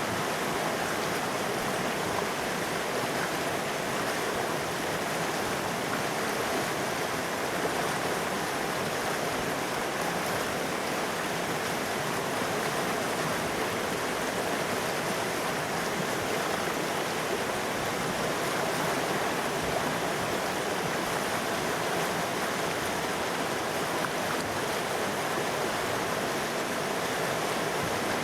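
Río Claro river flowing, a steady rushing of water with no breaks.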